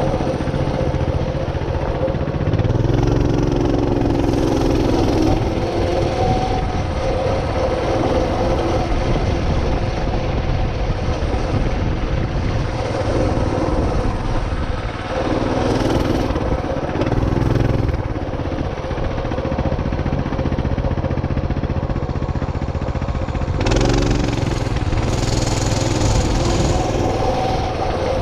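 Small vehicle engine running as it is ridden along a gravel road, its note rising and falling several times with the throttle, over steady rumble and wind noise.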